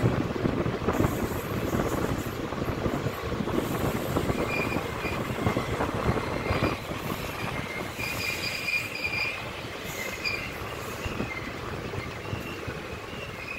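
Passenger train running on the rails, heard from aboard a coach: a steady rumble of wheels on track, with a high, on-and-off wheel squeal from about four seconds in.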